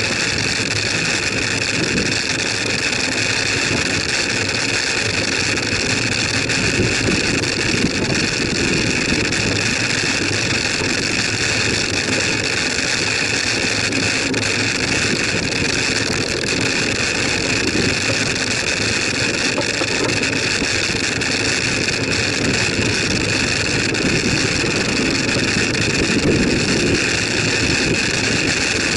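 Steady rushing of wind over the microphone of a bicycle-mounted camera, mixed with tyre and road noise as the bike rolls along a tarmac street.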